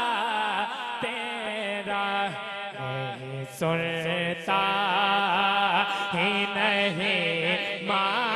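A man singing a naat into a handheld microphone: a long ornamented vocal line of held, wavering notes, with no clear words, over a steady low held note.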